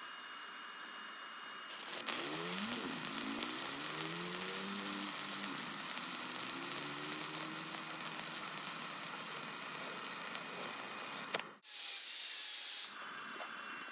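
Stick welding arc crackling and sizzling steadily while a bead is run. It starts about two seconds in and cuts off about eleven and a half seconds in, followed by a brief louder hiss.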